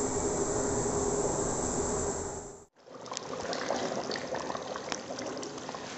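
A wooden spoon stirring a pot of simmering kadhi in a steel pot: liquid sloshing and bubbling, with small clicks of the spoon against the pot. The sound cuts out briefly about two and a half seconds in, then the stirring goes on.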